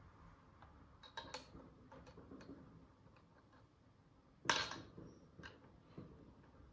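Light taps and clicks from handling small toy pieces and packaging, with one louder, brief scratchy sound about four and a half seconds in.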